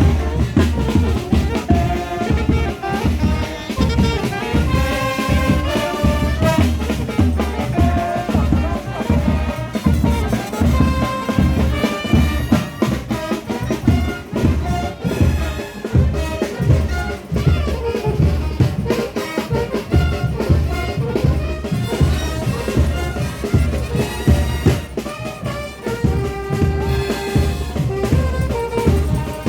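Frevo brass band playing: trumpets and trombones carry the melody over a fast, steady drum beat.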